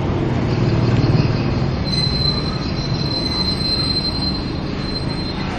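A high, steady mechanical squeal sets in about two seconds in and holds for some three seconds, over a steady low rumble.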